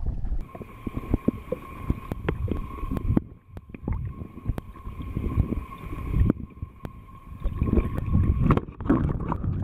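Water sloshing and gurgling around a camera held underwater while a northern pike is released by hand, with many small knocks against the housing. A steady high whine runs through it, breaking off a couple of times.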